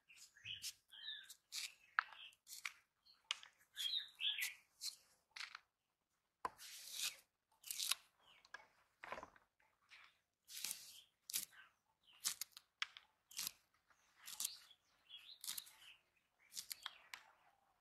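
Young green jackfruit being sliced on a curved bonti blade: short, irregular cutting and scraping strokes as the firm flesh is pushed through the edge. Faint bird chirps now and then.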